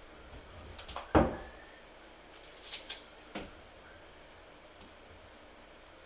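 Hard objects being handled: a sharp knock about a second in, then a few lighter clicks and a softer knock.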